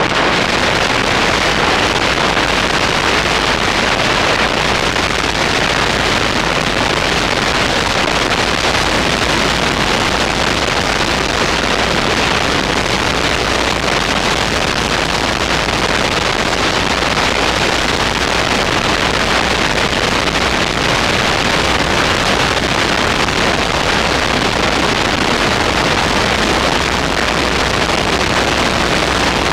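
Motorcycle riding at steady speed: a loud, even rush of wind noise over the microphone mixed with the engine and road noise, with no breaks or changes.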